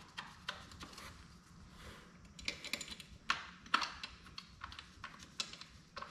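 Light, irregular clicks and taps of bolts being fitted by hand into a throttle body, a few louder knocks about halfway through.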